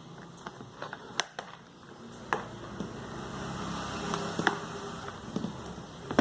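Sharp plastic clicks and knocks as the latches of a column fan's plastic housing are pressed and released, about four distinct snaps. From about two seconds in, a steady low engine-like hum runs underneath.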